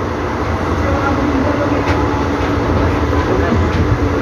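Steady rumble and rail noise of the Upasana Express passenger train running, heard from inside a coach.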